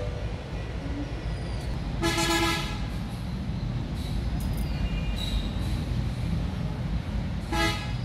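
A vehicle horn sounds twice over a steady low rumble: a longer toot about two seconds in and a short one near the end.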